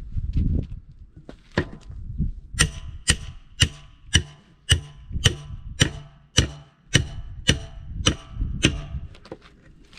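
Hammer blows on a Gaz66 split-rim wheel, a steady run of about two strikes a second, each with a short metallic ring. The blows are working the tyre bead loose where it has rusted onto the rim.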